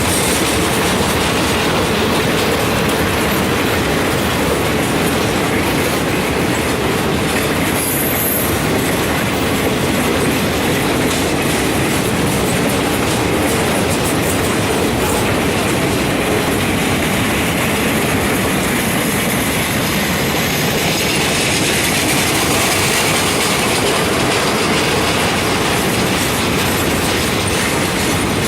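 Freight train cars rolling past close by: a steady, loud clatter and rumble of steel wheels on the rails, with some wheel squeal.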